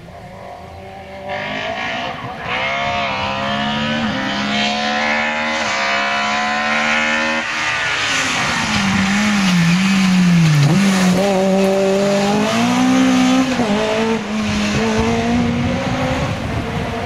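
Opel Kadett C Coupé rally car's engine revving hard as it passes, its pitch climbing for several seconds. About halfway through the revs drop and dip as it lifts for the bend, then climb again as it pulls away.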